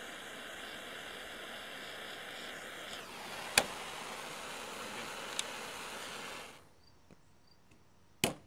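Handheld propane blowtorch burning with a steady hiss while heating the solder on a circuit board, cutting off about two-thirds of the way through. A sharp click a little after three and a half seconds, and another near the end.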